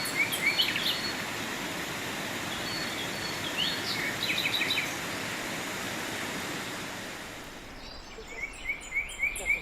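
Steady rush of falling water with small birds singing over it: repeated short rising chirps and quick trills. About eight seconds in the water noise drops away and the birdsong stands out more clearly.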